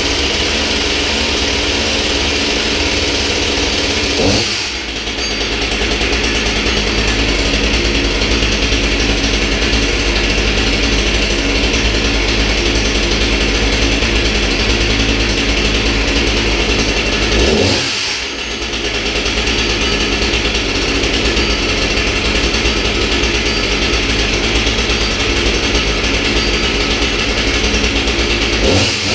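New STIHL top-handle chainsaw's two-stroke engine running steadily at idle on its first run. It revs up briefly about four seconds in and again around eighteen seconds, and its pitch glides at the very end. The sound echoes off the tiled walls of a small room.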